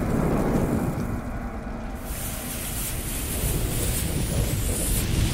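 Intro sound effect of a lit bomb fuse and fire: a steady low rumble with a hiss that gets louder about two seconds in.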